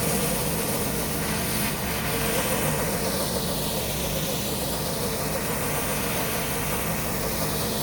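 Gas-engine pressure washer running steadily under load, with a constant hiss of water spray over the engine hum.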